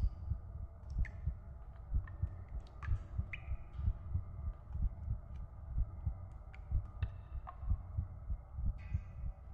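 A slow heartbeat, a double beat about once a second. Scattered water drips fall over it, several short high plinks.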